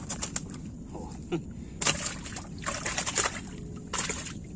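Lake water splashing and dripping in several short bursts as a fishing net is hauled up out of the water.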